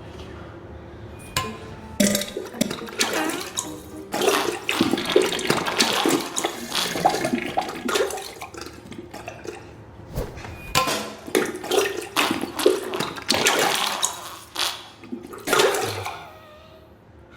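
Diarrhea sound effect: wet splattering and sputtering spurts splashing into toilet water, coming in irregular bursts of changing loudness.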